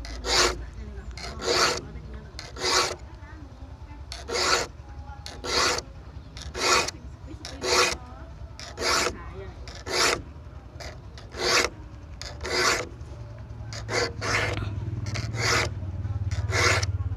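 Saw file rasping across the teeth of a handsaw to sharpen them: short scraping strokes, about one a second. A low hum rises in the background over the last few seconds.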